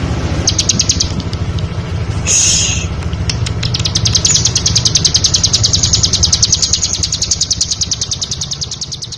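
Ciblek (bar-winged prinia) singing: a short burst of rapid high notes, then a long fast trill of the same high note repeated about a dozen times a second. A steady low hum runs underneath.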